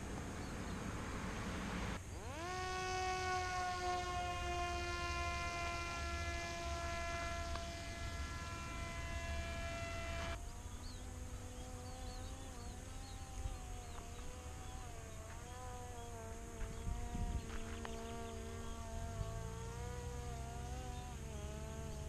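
Parrot Disco fixed-wing drone's electric motor and rear propeller: a whine that spins up sharply about two seconds in and holds a steady pitch. About ten seconds in it changes abruptly to a lower whine that wavers up and down in pitch.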